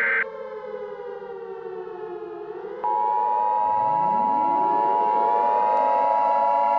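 Civil defense siren falling in pitch and then winding back up. About three seconds in, a loud steady two-tone Emergency Alert System attention signal cuts in over it. A loud high tone cuts off just after the start.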